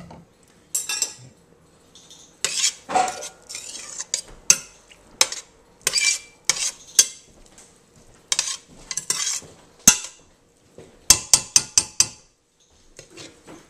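A spoon stirring string beans in broth in a stainless steel sauté pan, with irregular scrapes and clinks against the pan. About a second and a half before the end comes a quick run of about five sharp clinks.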